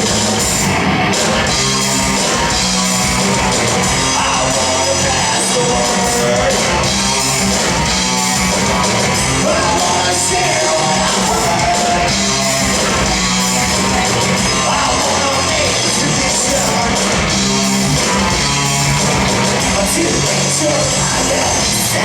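Live rock band playing loud and steady, with a singer's voice over the band.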